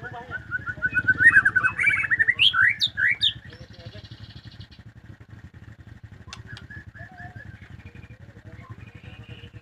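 White-rumped shama singing: a loud, rapid phrase of quick chirps and rising whistles lasting about three seconds, followed by softer scattered notes.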